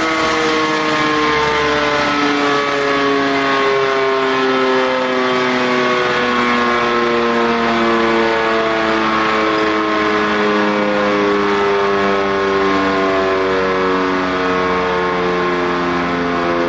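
E57 electromechanical civil-defence siren running at full speed: a loud, sustained chord-like howl whose pitch drifts slowly up and down.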